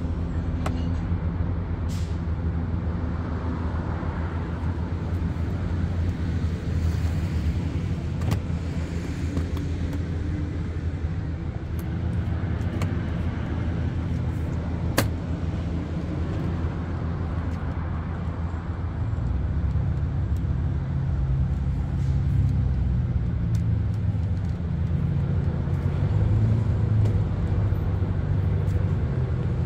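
Steady low hum of a vehicle engine running, getting a little louder about two-thirds of the way through, with a single sharp click about halfway.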